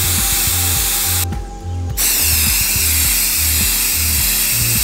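Aerosol spray-paint can hissing as it sprays: the first spray stops about a second in, and after a short pause a second, longer spray starts.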